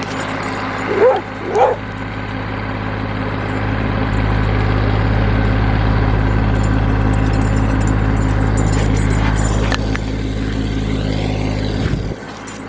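Tractor engine running steadily under load while leveling a gravel driveway; it grows louder a few seconds in and drops off sharply near the end. A dog barks twice about a second in.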